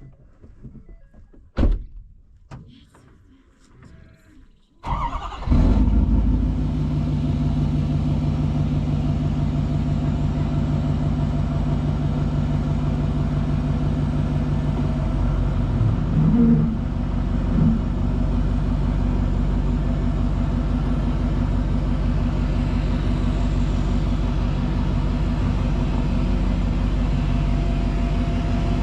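A few scattered knocks and clicks, then about five seconds in a vehicle engine starts and settles into a steady run, with a brief rise about halfway through.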